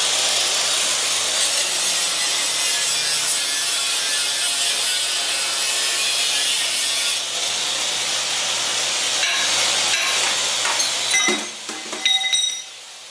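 Angle grinder grinding welds off a steel plate: a steady, harsh grinding of the disc on the metal. About eleven seconds in the grinding stops, and a few sharp metal knocks follow.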